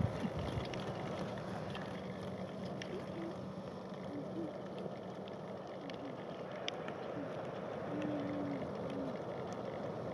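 Steady low rumble of wind on the microphone with outdoor background noise, and a few short faint low tones in the second half.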